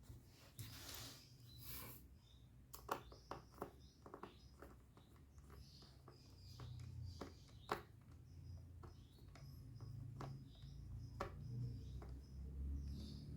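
Scattered small clicks and taps of hands working on a laptop, with a brief rustling swish about a second in and faint bird chirps behind.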